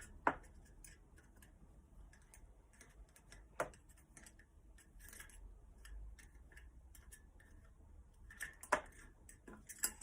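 Loose 1/4-inch steel ball bearings being pushed out of a bicycle rear hub and dropping into a plastic tub, with a few sharp clicks and fainter small ticks between.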